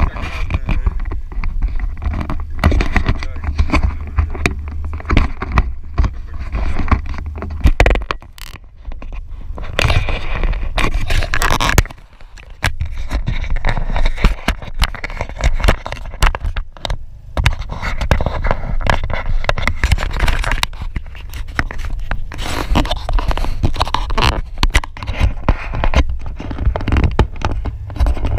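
Handling noise from an action camera being gripped, turned and fixed to its mount on the hood of a Polaris Slingshot: irregular scraping, rubbing and knocks right at the microphone, over a low steady rumble.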